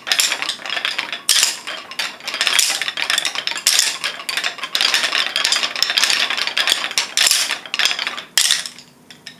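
Many children's wooden rhythm sticks clattering and clicking against each other and the floor in a steady rhythm, two groups playing in canon so the clicks overlap. The playing stops about eight seconds in.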